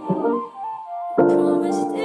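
Background music: a soft song with piano, thinning out to a few held notes, then coming back fuller just past the middle.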